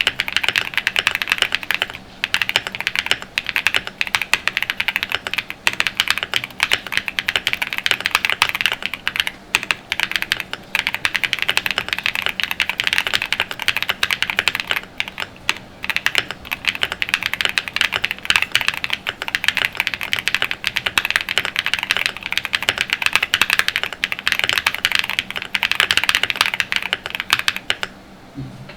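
Continuous fast typing on a QK75 mechanical keyboard with a POM plate, full foam dampening, pre-lubed Kailh Ashes switches and QK75 bundle keycaps. The keystrokes stop briefly near the end.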